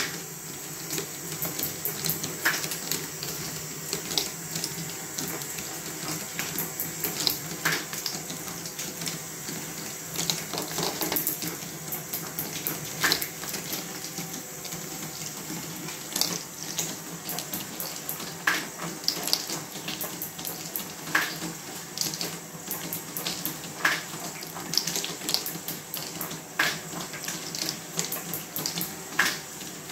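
Steel balls rolling and rattling along the plastic rails and ramps of a Fischertechnik ball contraption, with frequent irregular sharp clicks as balls knock against the parts. A faint steady machine hum runs underneath.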